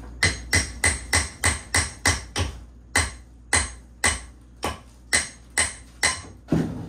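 Hand hammer blows chipping old, crumbling cement chinking out from between the logs of a log wall. The blows are sharp and ringing, about three a second at first, then slowing to about two a second.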